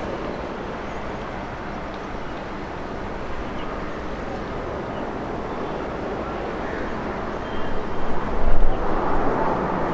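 Distant jet airliner on its landing rollout: a steady rushing engine noise, turning louder and gusty near the end.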